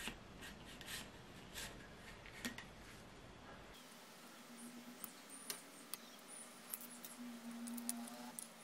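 Faint hand-work on a bicycle handlebar: small clicks and taps of pliers and metal parts at the brake lever, then, after a cut, a rubber handlebar grip rubbing and squeaking against the bar as it is worked on, with sharp ticks.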